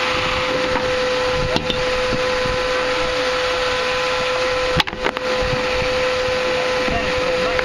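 Vacuum cleaner running steadily with a constant whine, drawing air through the pipe of a homemade vacuum railway. A sharp knock comes about one and a half seconds in, and two quick knocks come about five seconds in.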